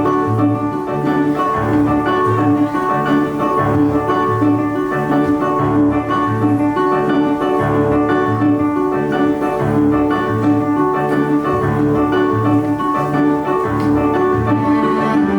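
Instrumental keyboard music: held chords over a low bass figure that repeats steadily, rocking between two notes.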